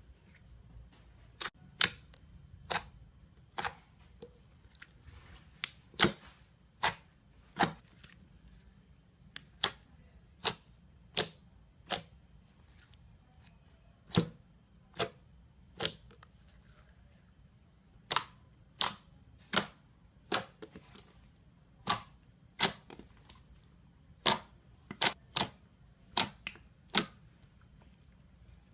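Slime being pressed and squeezed by hand, trapped air bubbles popping with sharp clicks, irregularly about once a second and sometimes two or three in quick succession.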